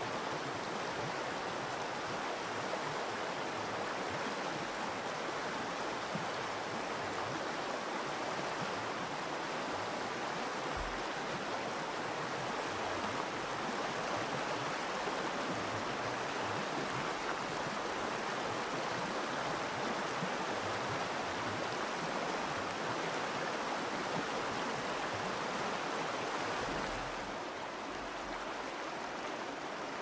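Virgin River rushing over stones in shallow riffles: a steady, even wash of flowing water that drops slightly in level near the end.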